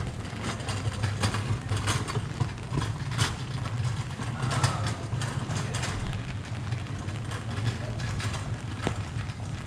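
Steady rain, with irregular drops and drips tapping sharply, over a low steady hum.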